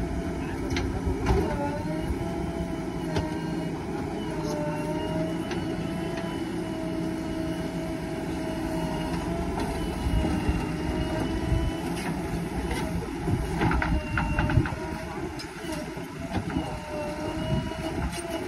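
JCB backhoe loader at work: its diesel engine runs steadily under a whine that rises and falls as the hydraulics move the digging arm. Scattered knocks come as the bucket digs earth and dumps it into a tractor trolley.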